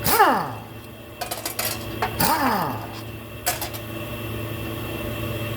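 A small motor spinning briefly twice, its pitch falling quickly each time as it winds down, with a few sharp metallic clinks between.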